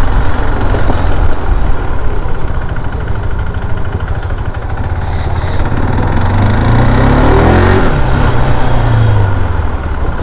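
KTM RC 390's single-cylinder engine running as the bike is ridden, with a dense low rumble throughout; about six seconds in the engine note rises as the bike accelerates.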